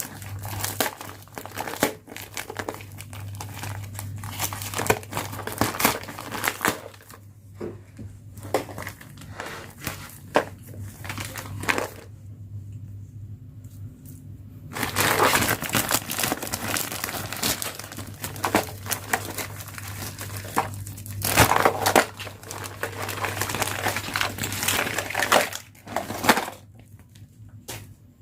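Plastic toy packaging crinkling and rustling as it is handled and opened, in irregular stretches broken by sharp clicks, over a faint low steady hum.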